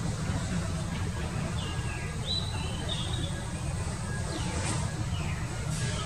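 Small birds chirping over a steady low rumble: a few thin high notes about two seconds in, then quick calls sweeping downward twice near the end. The dove in view is not cooing.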